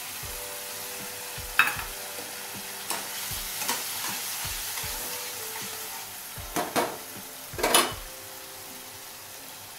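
Pineapple pulp, ghee and freshly added sugar sizzling in a kadhai while a spatula stirs, scraping and knocking against the pan several times, loudest twice around two-thirds of the way in. The sugar is being mixed in and melting into the pulp.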